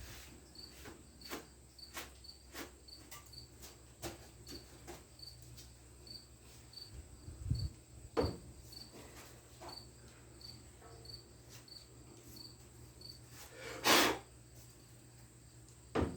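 A faint, regular high-pitched chirp repeating about one and a half times a second, with scattered light clicks and knocks and one brief louder rustling scrape near the end.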